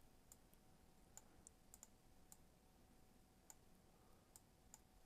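Faint computer mouse clicks, about ten scattered irregularly, over near silence.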